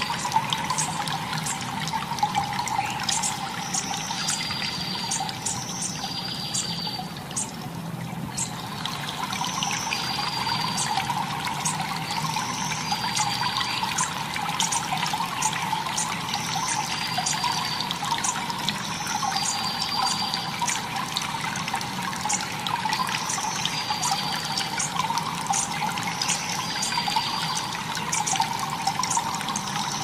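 Steady rushing of a mountain river over rocks and rapids. A short high chirp recurs every two to four seconds over the water.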